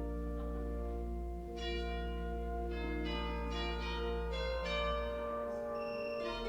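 Organ music: low chords held under a run of chiming, bell-like notes that starts about a second and a half in.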